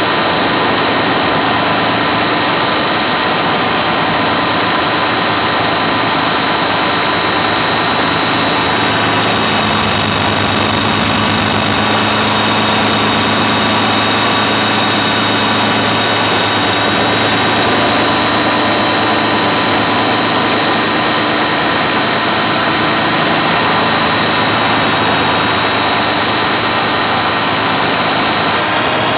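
Helicopter running steadily: a constant high whine over a dense engine and rotor hum, holding the same pitch throughout.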